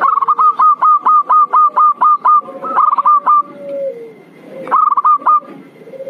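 Recorded zebra dove lure call. It is a rapid run of short staccato cooing notes, about five a second, that comes in three bursts, over a lower drawn-out coo that falls away near the middle.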